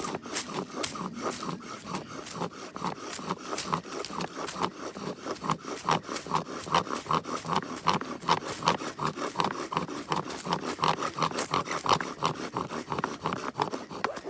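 Fast, even scraping strokes, about three to four a second, that keep up steadily and then stop abruptly.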